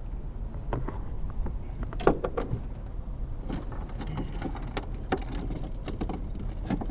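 Scattered clicks, knocks and clatter as a freshly caught flathead catfish and a fish scale are handled in a boat, the sharpest knock about two seconds in, over a steady low rumble.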